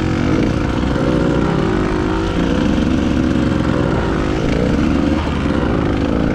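Dirt bike engine running while riding along a dirt track, its revs rising and falling several times.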